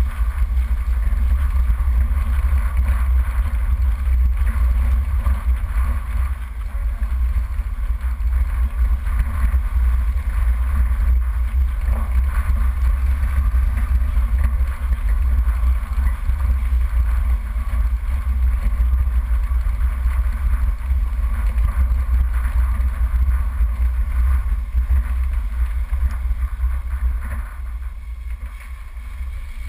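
Steady low rumble of an off-road vehicle driving along a rough dirt track, engine and tyre noise mixed, easing off slightly near the end.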